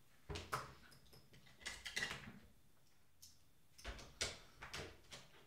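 Small plastic clicks and knocks from hands handling and working loose parts inside the opened plastic housing of a Bang & Olufsen Beolink 7000 remote control during disassembly. A few sharp clicks come in clusters, about half a second, two seconds and four seconds in.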